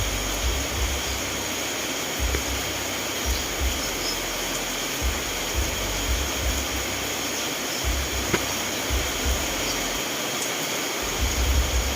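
Steady rainfall, an even hiss, with irregular low rumbles now and then and a single tick about eight seconds in.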